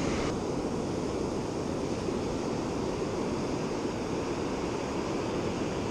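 Ocean surf washing up the beach: a steady, even rush of breaking waves and foam.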